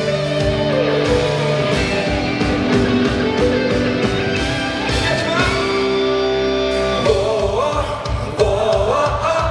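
Rock band playing live: a steady drum beat, guitar and held instrument tones, with singing.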